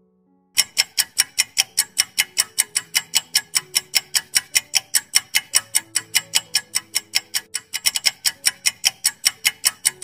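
Countdown-timer sound effect: fast clock ticking, about five ticks a second, starting about half a second in, over faint background music.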